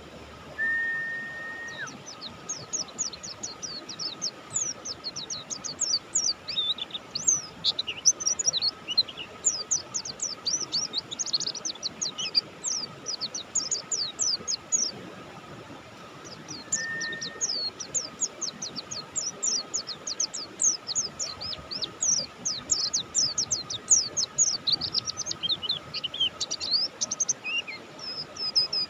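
Pleci Buxtoni white-eye singing in long rapid runs of high, thin, downward-slurred notes, with a pause of a second or two in the middle. A short steady whistle-like tone sounds near the start and again briefly before the second run.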